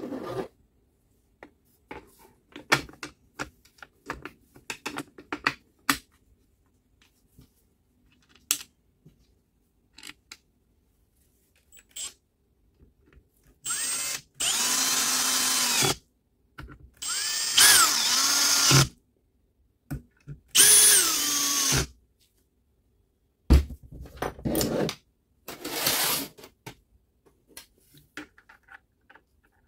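Cordless drill/driver driving screws into a circular saw's blade guard: three runs of about two seconds each, each opening with a rising whine, then a few shorter bursts. Before them come light clicks and clatter of parts being handled.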